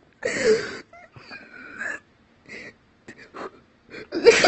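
A man's breathless, wheezing laughter: a loud gasping squeal, thin high squeaks, then a loud wavering cry near the end, laughing so hard he can barely breathe.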